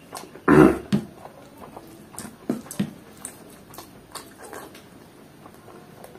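Close-up eating sounds: chewing and wet lip smacks, with one loud mouth sound about half a second in, then a few softer smacks and clicks.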